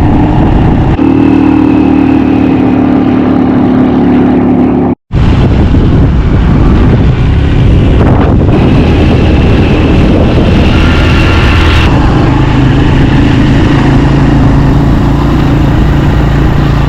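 Motorcycle engine running steadily while being ridden, with loud noise underneath. The sound breaks off for a moment about five seconds in.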